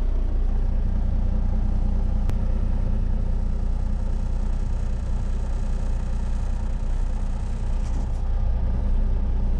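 A vehicle engine running steadily with a low, even drone, while a load of round hay bales is being hauled.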